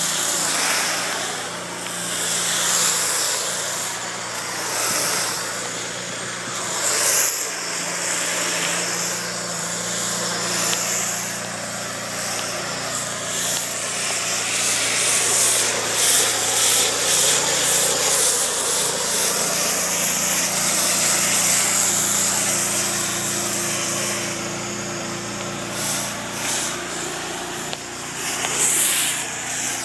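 A machine running steadily with a low hum, under a constant rough hiss with rubbing noises.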